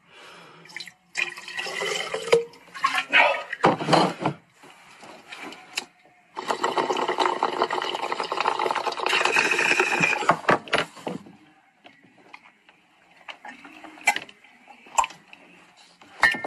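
Liquid squirted and poured into a glass bong in short bursts, then the water in the bong bubbling hard and continuously for about five seconds as a hit is pulled through it, starting about six seconds in.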